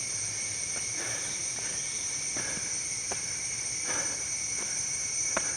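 Steady, high-pitched chorus of jungle insects, several pitches held at once, with a few faint footsteps.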